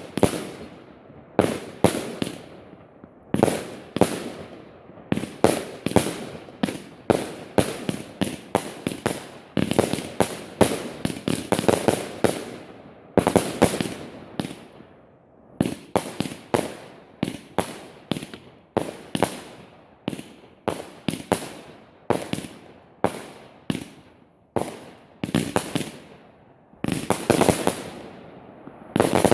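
Fireworks going off: a long, irregular string of sharp bangs, one or two a second, each trailing off in an echo, bunching into quick clusters in places with a couple of brief lulls.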